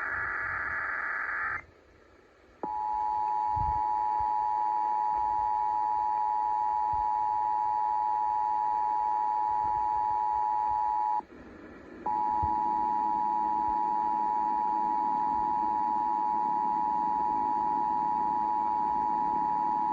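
Emergency Alert System tones over radio. The warbling data burst of the alert header ends, and after a short pause the steady two-tone attention signal sounds, introducing a required monthly EAS test. About eleven seconds in, the attention signal breaks off for about a second and then resumes.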